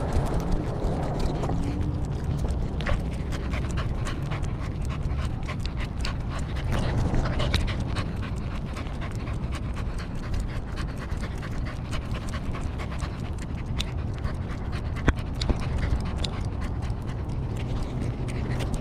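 Corgi panting steadily, heard close up from its collar, with many small clicks scattered throughout.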